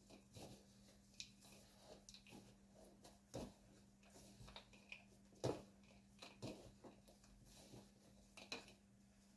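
Gloved hands tossing cubes of bread and biscuit in a bowl: faint, scattered soft rustles and crumbly taps, with two louder ones about three and a half and five and a half seconds in, over a faint steady hum.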